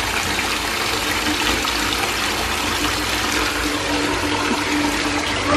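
Water running steadily into a bathtub as it fills, a continuous rushing with a steady low hum underneath.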